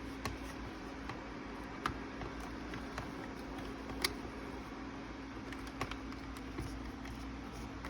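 Scattered light clicks and taps of hands and a screwdriver working on the plastic parts of an animated Santa figure, one louder click about four seconds in, over a steady low hum.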